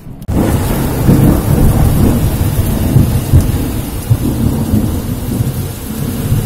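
Heavy rain in a thunderstorm: a loud, continuous low rushing rumble that swells and fades unevenly.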